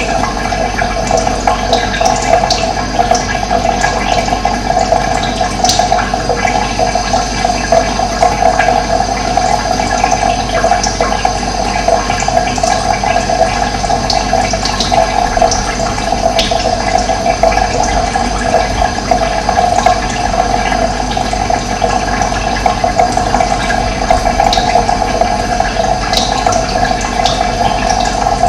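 Running water rushing steadily and evenly, with a few short, high bird chirps scattered through it.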